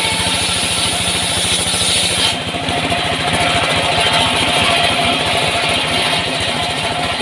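Engine of a wood-cutting saw running steadily, with a high hiss that drops away about two seconds in.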